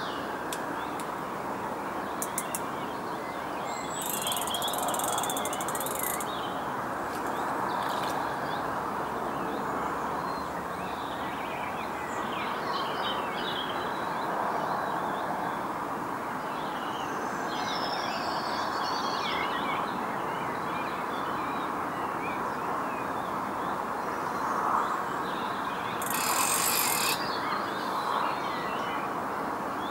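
Small birds chirping and singing on and off over a steady background rush. Twice there is a short, high, scratchy burst, near the start and near the end.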